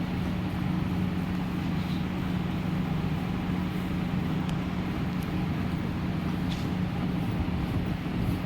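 A machine running with a steady low hum, unchanging throughout.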